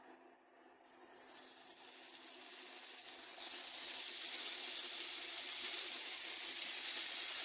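Slices of raw pork belly sizzling as they are laid into a hot frying pan. The hiss starts about a second in and builds over the next few seconds to a steady sizzle.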